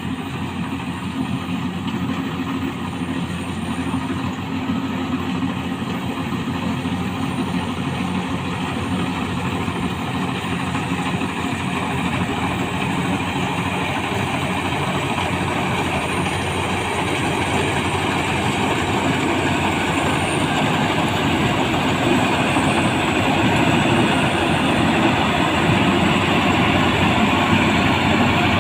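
Rice combine harvester running steadily: an engine hum under a dense mechanical noise, growing gradually louder.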